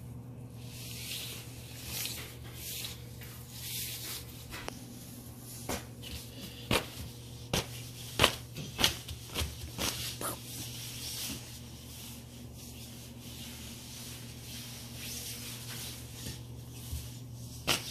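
Fabric of a pop-up play tunnel rustling and rubbing as a small child crawls through it on hands and knees, with a run of sharp knocks and scrapes between about six and eleven seconds in. A steady low hum runs underneath.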